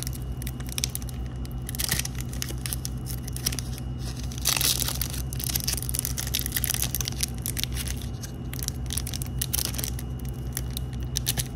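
Foil wrapper of a Pokémon booster pack crinkling and crackling under the fingers as it is picked at and pulled to tear it open, with a louder tearing rustle about four and a half seconds in. The wrapper is resisting being opened.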